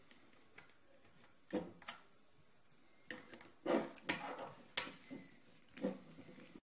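Irregular small clicks and knocks of needle-nose pliers and a hard 3D-printed plastic part being handled as M3 lock nuts are fitted into the printer's X carriage. About half a dozen knocks, the loudest a little past halfway.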